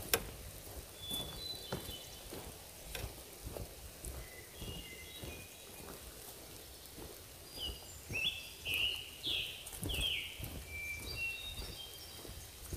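Footsteps on a forest dirt trail at a walking pace, about one a second, with songbirds chirping throughout. The loudest sound is a bird's run of falling whistled notes between about eight and ten seconds in.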